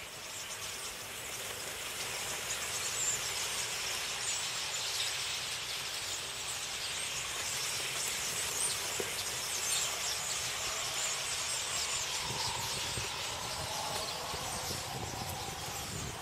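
A huge flock of common starlings coming in to roost, their calls and wingbeats making a dense, continuous hissing chatter. A low rumble joins in near the end.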